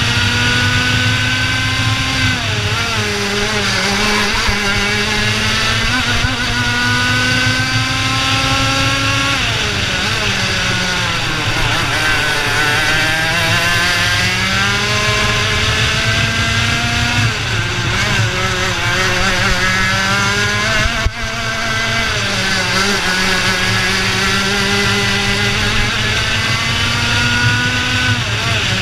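IAME Leopard 125 cc two-stroke kart engine at racing speed. Its pitch climbs steadily for several seconds down each straight, then falls back when lifting and braking for the corners, over a steady rush of wind and tyre noise. A single brief knock comes about two-thirds of the way through.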